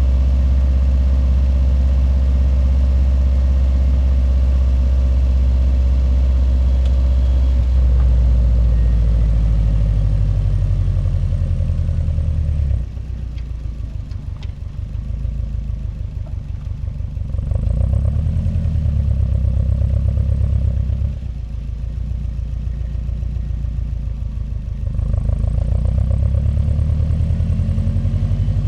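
Subaru WRX STi's turbocharged flat-four boxer engine and straight-through exhaust running at low revs with a low, steady rumble. About halfway through the sound drops suddenly, then swells up and falls back, and swells again near the end as the throttle is worked.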